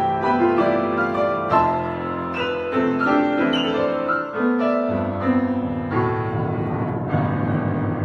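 Grand piano playing a quick run of notes. About four and a half seconds in, the playing breaks off and lower notes ring on as a cat steps across the keyboard.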